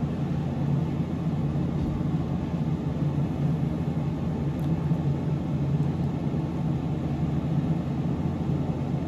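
Steady low droning hum of room background noise, even and unchanging, with no distinct knocks or clicks.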